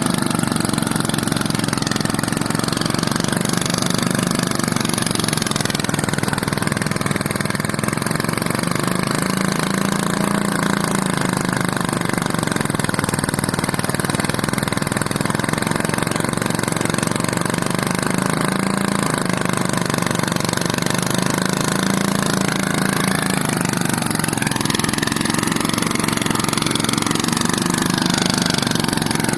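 A small engine running steadily, its pitch drifting slightly up and down.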